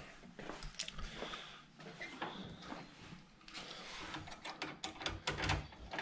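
Faint, scattered clicks, light knocks and rustles of handling, like small objects being moved and set down.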